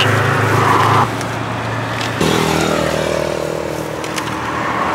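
Road traffic: a motor vehicle's engine hum drops away about a second in, and another engine's hum comes in about two seconds later and runs on steadily.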